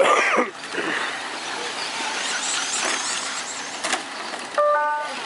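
Radio-controlled short-course race trucks running, their motors whining, with a loud whine falling in pitch right at the start. A sharp knock comes about four seconds in, and a brief two-note beep follows near the end.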